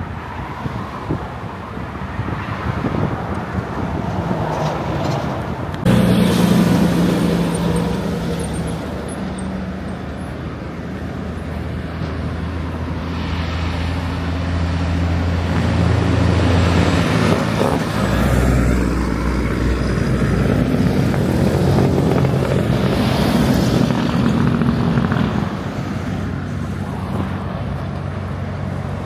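Diesel semi-trucks passing close by on a highway, one after another: a steady engine drone with tyre and road noise. The sound changes abruptly about six seconds in.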